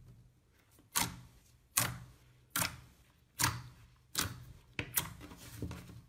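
Clear slime pressed and squished flat by hand, giving a series of sharp, crisp pops, a little faster than one a second.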